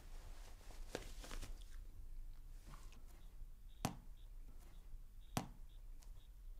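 Faint rustling of clothing, then two sharp taps about a second and a half apart as a small ball is tossed up and caught in the hand.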